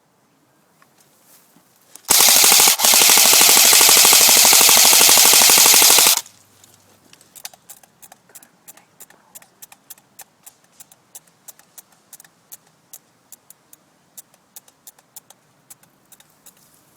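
Airsoft rifle firing a long full-auto burst close to the microphone, rapid shots run together for about four seconds with a brief break just after it starts. Then a string of faint, sharp clicks, two or three a second.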